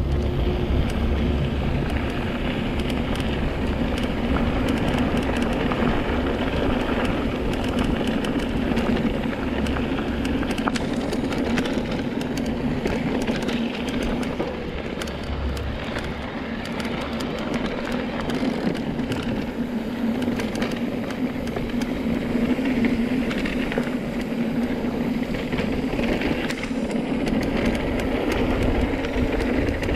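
Steady vehicle running noise: a continuous rumble with a hum, unchanging throughout.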